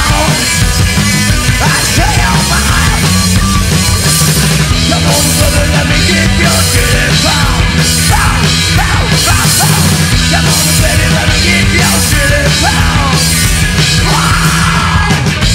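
Rockabilly-style punk band playing live: drums, electric guitar and bass together, with shouted vocals into a handheld microphone.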